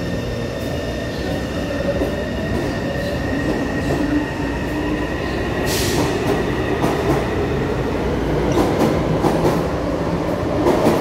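Taipei Metro C301 train pulling out of the station: its traction motor whine rises in pitch as it accelerates, with a short hiss about six seconds in. Rolling noise from the steel wheels grows louder in the second half, with repeated wheel clicks over the rail joints as the cars pass.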